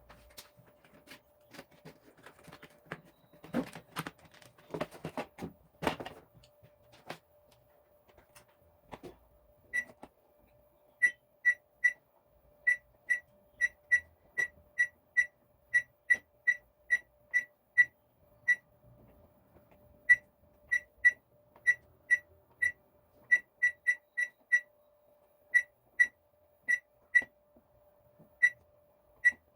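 Samsung microwave oven's control panel beeping: many short single beeps at one high pitch, unevenly spaced, as touch pad buttons are pressed one after another, each press answered by a beep. Before the beeps begin, a few seconds of handling knocks and clatter, with a faint steady hum underneath.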